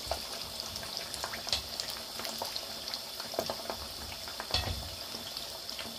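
Battered chicken drumsticks deep-frying in oil in a pan during their first, lower-temperature fry at about 130 °C: a steady bubbling sizzle with scattered crackles, and louder pops about a second and a half in and again past four and a half seconds.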